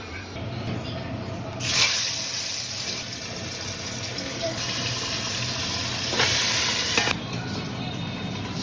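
Water running from a kitchen tap into a sink, turned on about a second and a half in and shut off about seven seconds in.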